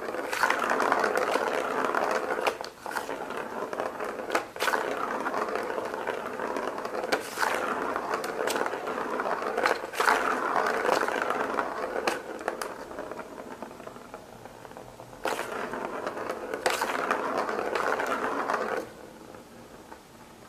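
Plastic ball rolling round the plastic track of a circular cat toy, a continuous rolling rattle with sharp clicks as the cat's paw strikes it. The rolling stops shortly before the end.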